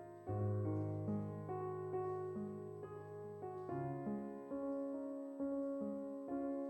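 Slow, soft piano music: held chords over a low bass note that changes about halfway through, with notes struck about twice a second.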